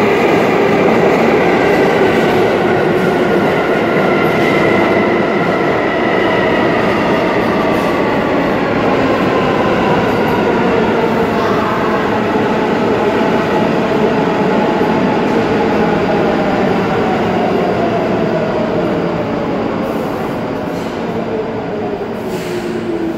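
R32 New York City subway train running into the station and braking, its traction motors whining in several tones that fall steadily in pitch as it slows, over continuous wheel-on-rail noise that eases off near the end.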